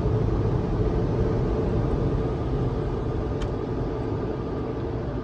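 Automatic car wash machinery running, heard from inside the vehicle's cabin: a steady low rumbling noise that slowly gets quieter.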